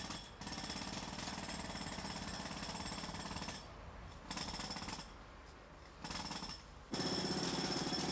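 A machine rattling rapidly in bursts of a few seconds, stopping and starting several times, and running louder near the end.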